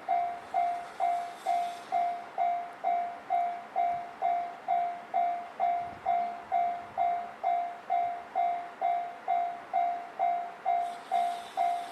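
Japanese railway level-crossing warning bell ringing, one clanging tone repeating evenly about twice a second: the signal that a train is approaching and the crossing is closed.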